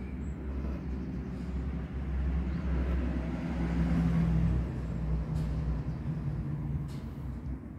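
Low engine rumble that swells about three to four seconds in and then eases off.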